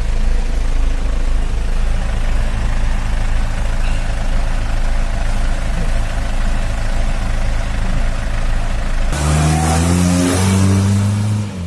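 Mahindra MM540 4x4 jeep's engine running steadily, heard from inside the cabin. About nine seconds in the sound turns louder and brighter, with the engine pitch stepping up and down as it revs.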